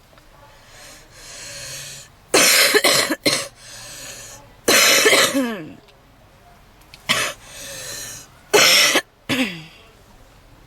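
A woman's heavy smoker's cough: loud, harsh coughs in several bouts, with noisy, wheezing breaths drawn in between them.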